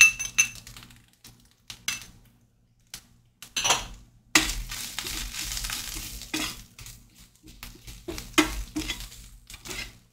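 A metal spoon clinks sharply against a ceramic ramekin as the seasonings are spooned out, followed by light clicks. From about four seconds in, the spoon scrapes and stirs through the onion and tomato paste mixture in a stainless steel frying pan, with a steady frying hiss and occasional knocks of the spoon on the pan.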